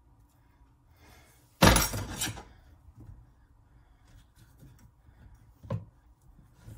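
A sudden loud clatter of kitchen utensils at a cutting board about a second and a half in, lasting under a second with a second hit inside it, then a single short knock near the end.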